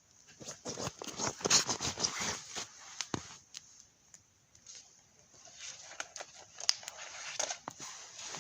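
Irregular crunching, crinkling and scraping of things being handled, in short uneven strokes, with a quiet pause of about a second and a half midway.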